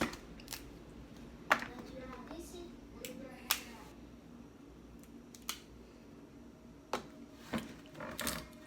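Crab shells being cracked and snapped apart: a string of sharp, separate cracks, about eight spread over several seconds.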